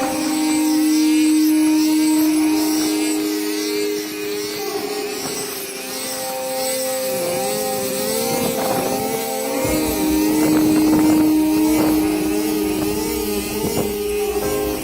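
Engine of a rice harvesting machine running, its pitch wavering up and down, with a deeper rumble joining about two thirds of the way through.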